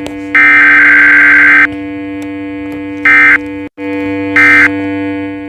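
Synthesized emergency-alert signal tones. A steady low electronic tone runs under loud, harsh buzzing blasts: one long blast lasting over a second near the start, then three short ones. The tone cuts out for a split second in the middle.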